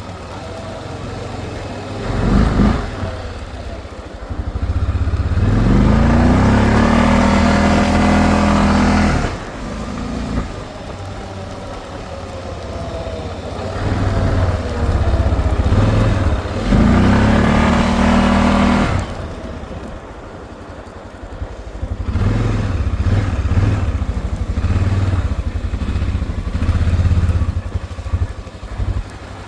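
Honda Rincon 650 ATV's single-cylinder engine, freshly rebuilt, running while being ridden. It makes two long rising pulls in pitch as it accelerates, drops back in between, and quietens briefly past the two-thirds mark before picking up again.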